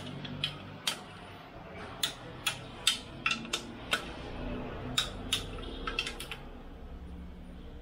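Ratcheting torque wrench clicking sharply and irregularly, about fourteen clicks over several seconds, as bolts on the engine's crankcase are tightened.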